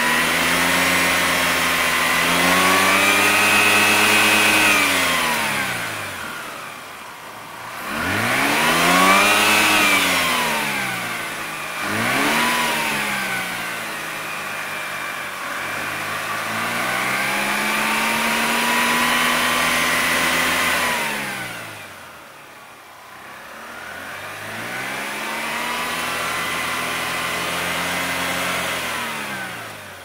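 A 2003 Mazda RX-8's twin-rotor Wankel rotary engine being revved. Four times the pitch climbs, holds for a few seconds, and falls back toward idle.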